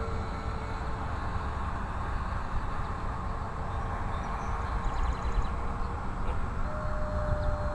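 Wind rumbling on the microphone, over the faint steady whine of a distant RC plane's AXI brushless motor and propeller. The whine drifts slowly lower in pitch and then steps slightly higher near the end as the plane changes course or speed.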